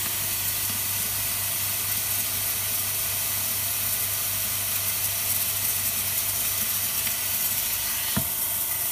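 Steady air hiss from an OCA laminating machine's vacuum suction, drawing air through the holes of its plate, over a low machine hum; a single click sounds near the end.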